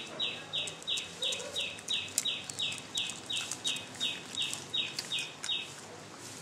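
A bird calling a fast, even series of short high notes, about three a second, stopping near the end, with light clicks underneath.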